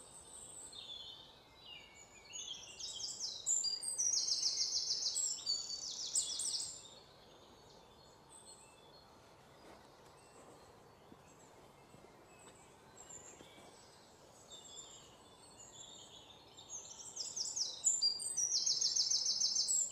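Birds singing high, rapid trilled phrases in two loud bouts, one in the first seven seconds and one near the end, with fainter calls in between over a soft background hiss.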